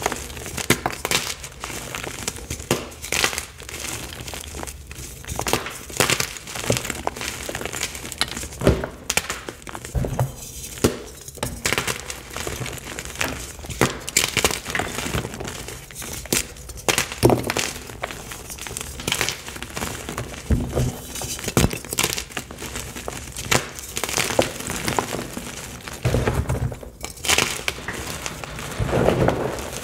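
Fresh Picsil gym chalk blocks being squeezed and crumbled in bare hands: a dense, irregular run of dry crunches and sharp cracking snaps as the blocks break into chunks and powder.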